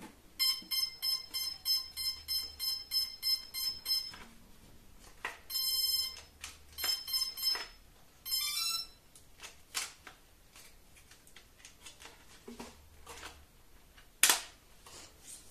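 Electronic buzzer in a quadcopter setup beeping: a quick run of about a dozen short, high beeps, then a longer tone, a few more beeps and a short warbling phrase. After that come scattered handling clicks, with one sharp click near the end.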